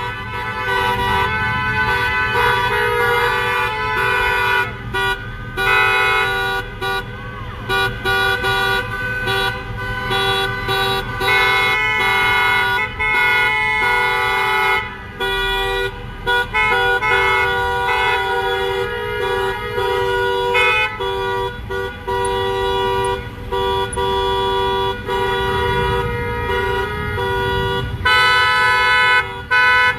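Many car horns honking at once from a slow-moving line of cars, overlapping blasts of different pitches starting and stopping almost without a break, over the low rumble of passing traffic.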